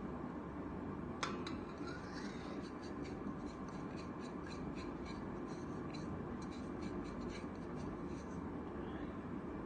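A sharp click about a second in, then a run of short, quick scrapes and ticks, about three or four a second, as a spoon works spices out of a container into a mixing bowl.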